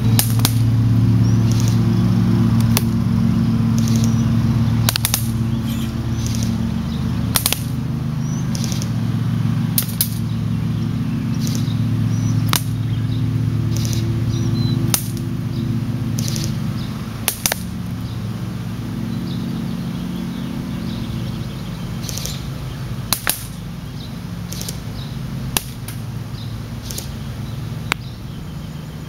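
A&K SR25 airsoft rifle fired one shot at a time at a target, heard as sharp cracks about every one to two seconds, over a steady low hum.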